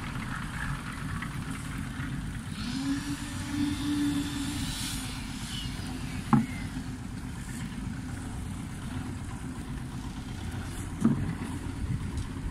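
An engine running steadily with a low rumble, its pitch rising and holding for a couple of seconds about three seconds in. Two sharp knocks stand out, about six and eleven seconds in.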